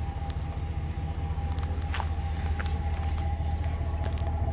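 Pickup truck engine running with a steady low drone, with a few light clicks about two seconds in.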